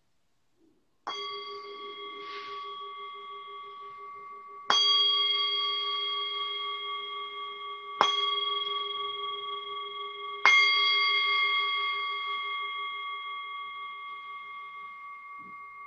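Singing bowl struck four times with a wooden mallet, each strike ringing on in several steady tones that fade slowly, the lowest tone wavering with a slow beat. It marks the end of a meditation.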